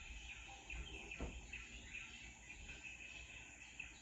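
A jungle-sounds ambience track playing faintly: insects chirring steadily, with occasional bird chirps.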